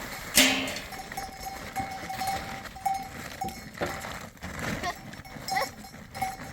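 Goats and sheep with bells clinking on and off. There is a sharp knock about half a second in and short bleat-like calls near the end.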